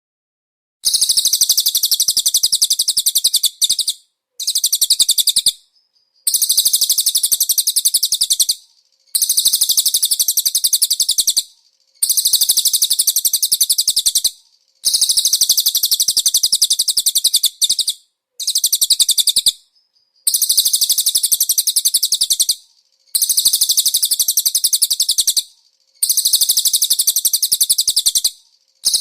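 Cililin songbird singing a very rapid, high-pitched trill in repeated bursts of two to three seconds, each followed by a pause of about half a second to a second.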